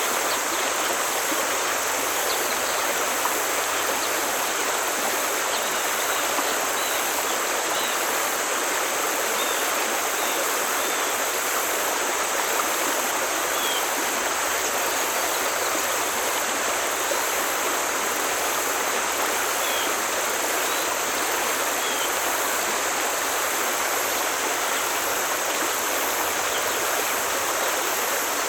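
Forest stream flowing, a steady, even rush of water, with faint short bird chirps now and then.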